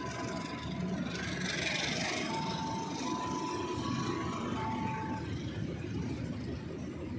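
A train running past with a steady rumble. Faint thin high tones come and go, shifting slightly in pitch, and fade out about five seconds in.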